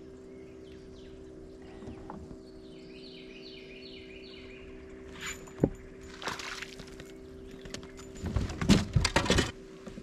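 A steady low hum runs under outdoor ambience while a bird gives a quick series of repeated chirps a few seconds in. In the second half, loud irregular knocks, scrapes and rustles of gear being handled in a small boat, the loudest cluster near the end.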